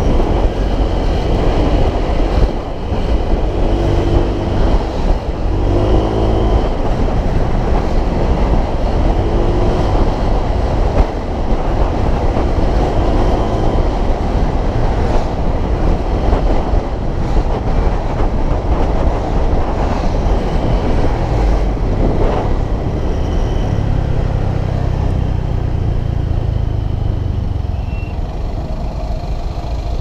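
Wind rushing over the microphone with the road and engine noise of a moving motor scooter, and a few brief rises and falls in engine pitch. The noise eases a little near the end as the scooter slows.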